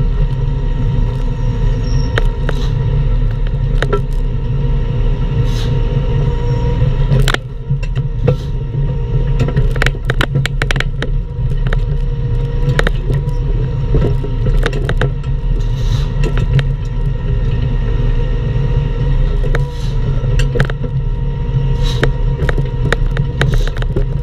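Bobcat E10 mini excavator working, its small diesel engine running steadily under load with a steady whine over it. Scattered knocks and scrapes come through as the machine digs out a palm stump.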